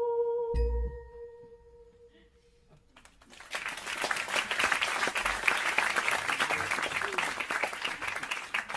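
A held hummed note ends with a low thump just over half a second in. After about two seconds of quiet, applause starts and runs for around six seconds.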